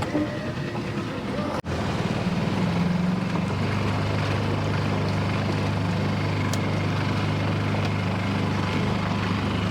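Jon boat's outboard motor running under way, a steady engine hum with water and wind noise; the pitch shifts a little early on, then holds steady.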